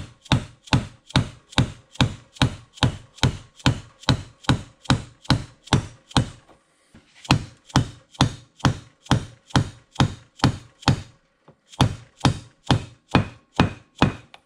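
A mallet tapping steadily on the dial holder, about three blows a second, driving it and its bearing down onto the shaft of a Bridgeport 6F power feed. The tapping pauses briefly twice, about six and eleven seconds in.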